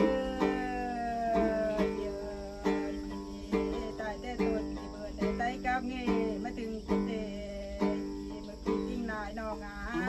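Tính tẩu, the Thái long-necked gourd lute, plucked in a steady pattern of chords about once a second, accompanying a voice singing Thái khắp folk song in long gliding notes, the longest one near the start.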